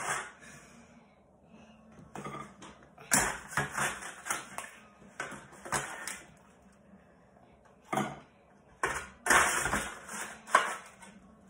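A metal spatula scraping and knocking against a metal baking tray as baked biscuits are lifted off it. The sound comes in irregular clusters of clatters and short scrapes, with the busiest scraping near the end.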